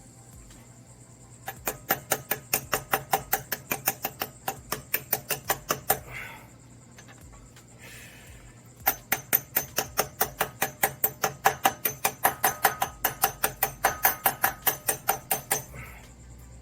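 Hammer tapping on a socket to drive a new pilot bearing into the end of a Suzuki Samurai crankshaft. The taps come in two runs of quick, even strikes, about five a second, with a pause of a few seconds between.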